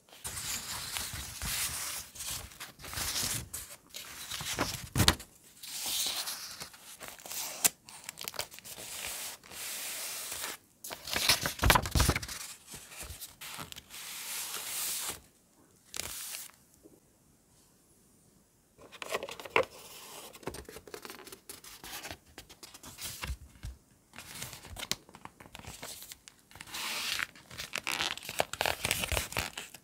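Paper being handled on a notebook page: irregular tearing, rustling and rubbing as collage paper pieces are torn, laid down and pressed flat, with a short quiet pause about two-thirds of the way through.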